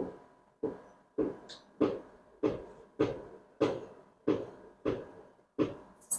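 A freshly calved cow being milked by hand: milk squirting into a pail in a steady rhythm, about ten squirts, each sharp at the start and quickly fading.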